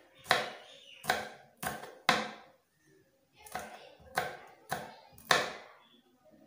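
Kitchen knife chopping green chillies on a wooden board: about eight sharp strikes of the blade against the wood, in two runs of four with a short pause near the middle.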